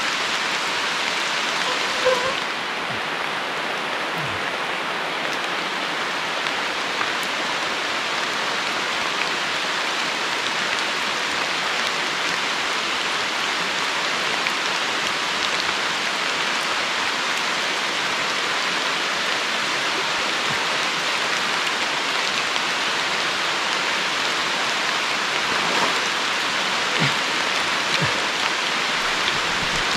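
Heavy rain falling steadily, with a few louder drops near the end.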